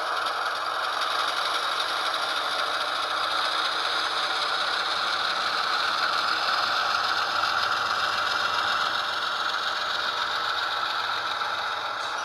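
HO-scale Athearn Genesis ES44DC model locomotive running under DCC control, its sound decoder playing a GE diesel engine sound through the small onboard speaker. It is a steady, rattly engine drone that swells slightly mid-way and eases toward the end.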